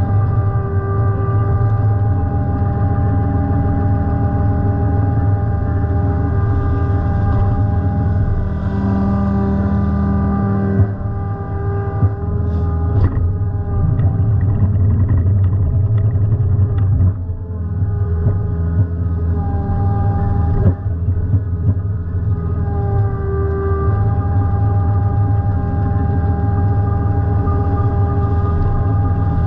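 Takeuchi TB145 mini excavator's diesel engine running steadily under hydraulic load as the boom works a cutter-bar mower through ditch reeds. Its pitch dips briefly twice, and a few short knocks come near the middle.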